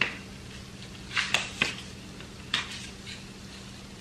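Sharp plastic-and-metal clicks of a CAA Roni G2 carbine conversion kit being handled as a spare Glock magazine is pushed into the kit's magazine holder: one click at the start, a quick cluster of three about a second in, and another around two and a half seconds.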